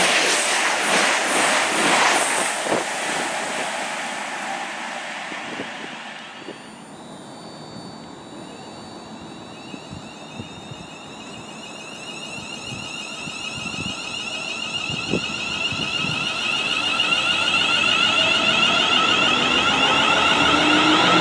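A CrossCountry Voyager diesel multiple unit rushing past and fading into the distance, then a Class 350 Desiro electric multiple unit approaching. The Desiro's traction motors whine with several steady high tones that grow louder as it comes alongside, and lower tones glide upward near the end.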